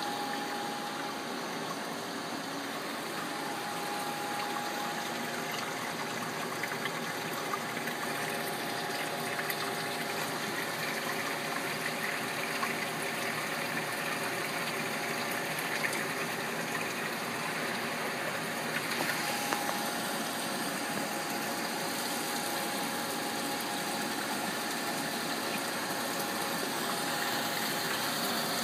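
Steady hum and hiss of running machinery, with a thin whine that drops out for a while and returns, and a few light clicks.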